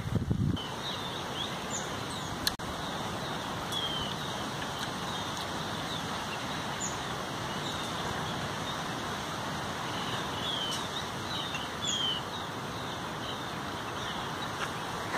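Small birds chirping with short, scattered calls over a steady outdoor hiss of forest ambience, with one sharp click about two and a half seconds in.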